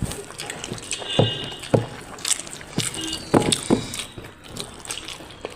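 Wet mouth smacking and chewing of rice with curry and dal eaten by hand, a string of short sharp smacks and clicks.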